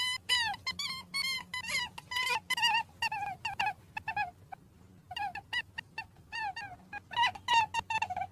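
Rabbit squeaking: a quick run of short, high-pitched calls, about three a second, breaking off about four seconds in and starting again about a second later.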